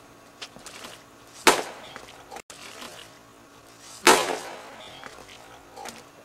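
Two sharp smacks about two and a half seconds apart. The second, about four seconds in, is a hollow plastic Blitzball being hit by a swing of the plastic bat.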